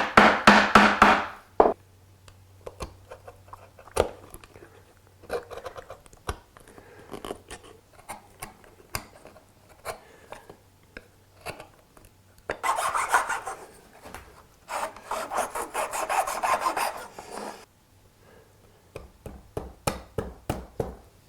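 A hand tool worked over wood in quick back-and-forth strokes, about five a second. There is a run of strokes at the start, two louder, longer runs about two-thirds of the way through, and lighter strokes near the end. Scattered single knocks fall in between.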